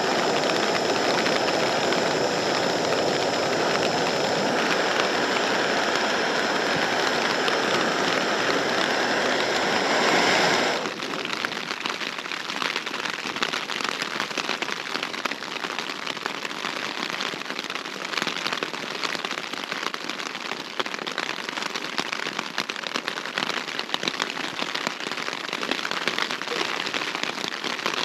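A camping gas stove burner running with a steady hiss and a faint whistle, shut off suddenly about ten seconds in. Then heavy rain pattering on the Hilleberg Unna tent's flysheet.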